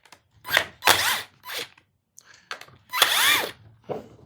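Cordless drill/driver spinning up and down in several short bursts, the longest about three seconds in, as it takes fasteners out of a chainsaw being stripped down.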